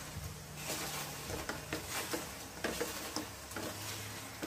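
A spatula stirring and scraping fried chicken wings through sticky chili garlic sauce in a nonstick wok, with irregular scrapes and taps against the pan over a low sizzle.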